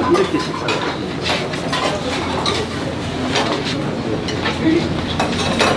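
Busy restaurant din: irregular clatter and clinks of dishes and utensils with indistinct voices and movement in the background.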